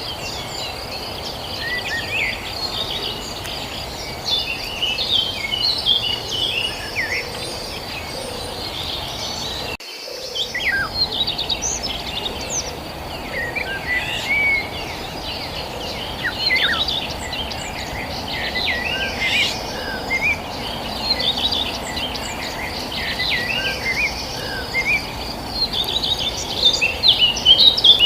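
Several birds chirping and calling in short, rapid phrases over a steady, fast-pulsing insect trill, with a low background hum of outdoor noise. Just under ten seconds in the sound briefly drops out and resumes, like a splice.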